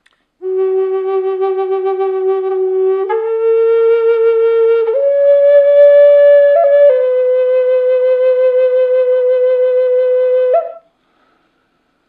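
Spirit Bird Native American-style flute in G4, made of figured maple, played dry with no added reverb. It plays four long held notes, stepping up from its low G to a higher note and then settling on a slightly lower one, with a brief grace note in the middle. The last note ends with a quick upward flick.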